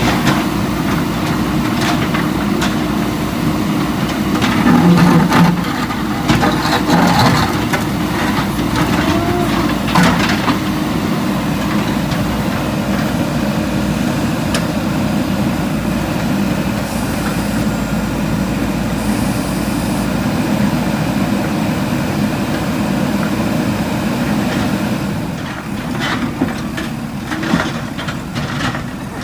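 Backhoe loader's diesel engine running steadily, with occasional sharp knocks and clanks. The engine drops slightly in level near the end, where the clatter becomes more frequent.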